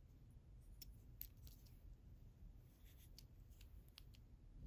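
Near silence, with several faint, light clicks and rubbing from handling a small diecast toy backhoe with plastic parts in the fingers.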